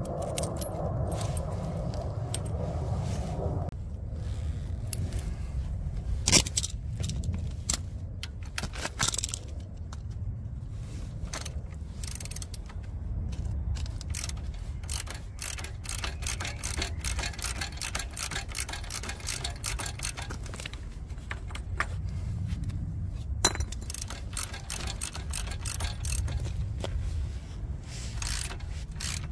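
Hand tools and metal parts clinking and scraping against one another during motorcycle swing-arm removal, with many short irregular clinks over a steady low hum.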